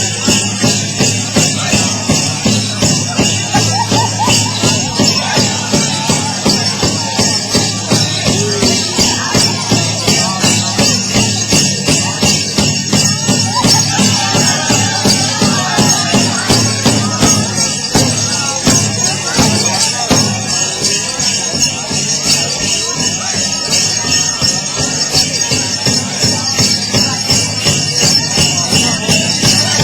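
Powwow drum group playing: a big drum struck in a steady, even beat with singers' voices over it, and a bright jingling from dancers' bells and jingles.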